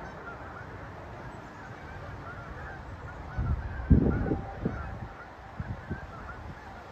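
A flock of geese flying overhead, honking over and over. About halfway through, a short burst of low rumbling thumps, louder than the honks, rises and then fades.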